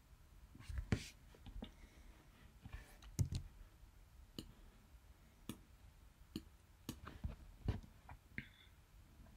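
Faint, irregular clicks and light knocks, about a dozen spread over several seconds, from a computer mouse being clicked and moved on a desk.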